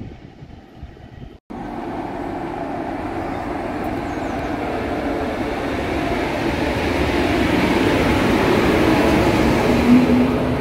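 DB class 143 electric locomotive and double-deck passenger coaches running along the platform at close range, a steady rolling rumble that slowly builds, with a brief tone near the end. The sound cuts out for a moment about a second and a half in.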